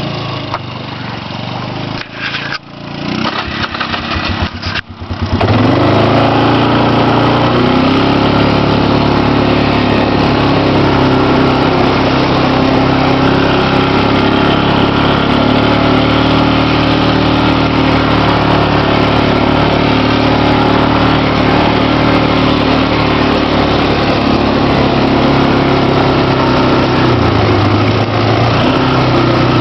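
ATV engine running close to the microphone while riding a gravel trail. The first five seconds are uneven and broken. It then settles into a loud, steady engine note, with a shift in engine speed near the end.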